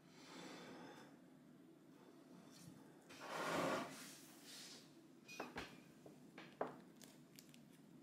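A ceramic bowl scraping briefly across a wooden counter about three seconds in, followed by a few light clicks of a metal fork against the bowl as it cuts into a slice of pot pie.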